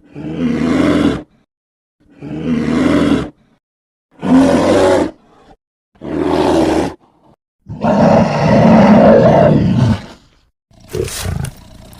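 A series of creature roar sound effects: separate roars about a second long with short silences between them, a longer roar of about two seconds past the middle, and two shorter, harsher ones near the end.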